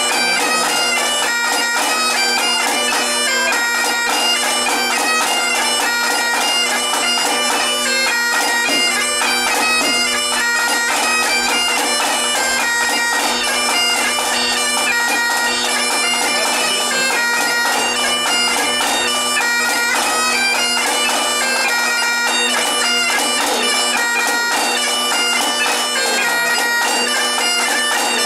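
Great Highland bagpipe playing a tune over its steady drones, with a snare drum accompanying.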